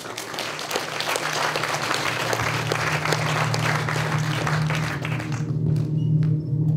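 Audience applauding, dying away about five seconds in. A low steady droning tone of music comes in about halfway through and keeps going.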